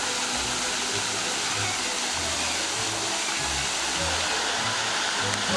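Fountain with many arching jets, spraying and splashing into its stone basin in a steady rush of water.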